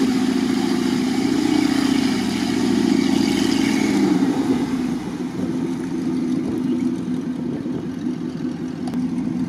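Jeep Grand Cherokee WJ's engine working hard as the lifted 4x4 pushes through deep mud. About four to five seconds in, the sound changes to a softer, steady off-road vehicle engine running.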